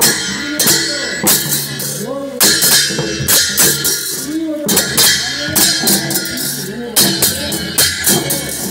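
Double-headed dhol drums and hand cymbals played in a steady beat, about two strokes a second, with voices of the dancers over them.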